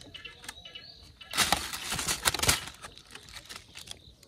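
A hooked fish thrashing and splashing at the water's surface on a set line. There is a dense burst of splashing for about a second, starting a little over a second in, with lighter splashes and rustling before and after it.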